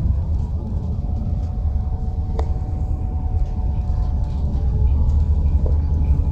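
A vehicle running, heard from inside: a steady low rumble with a faint whine above it, and one sharp click about two and a half seconds in.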